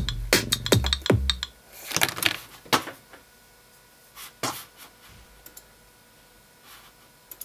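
Teenage Engineering Pocket Operator drum-machine beat playing for about the first second and a half, then stopping. A few scattered knocks and clicks follow as a phone is set down on the wooden desk.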